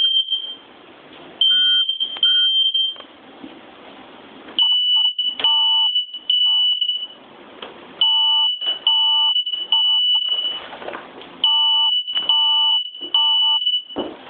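Smoke alarm sounding in its standard three-beep pattern: loud, high-pitched beeps in repeated groups of three, with about a second's pause between groups.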